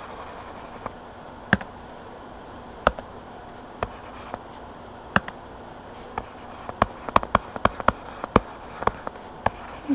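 Sharp clicks of a stylus tapping on a tablet screen, a few scattered at first and then a quick run of a dozen or so near the end as digits are written, over a faint steady hiss.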